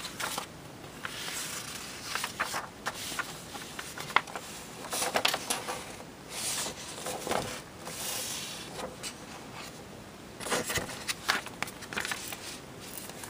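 Pages of a paper instruction booklet being turned and handled: a series of crisp paper rustles and flicks that come in irregular bunches.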